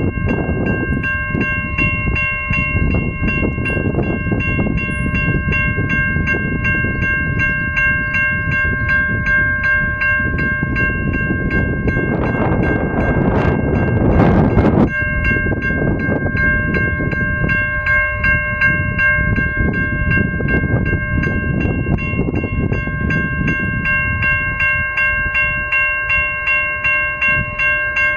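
Railway level crossing warning bell ringing at about two strikes a second, over a rough rumble of wind on the microphone. An Adelaide Metro 4000 class electric train approaches in the distance.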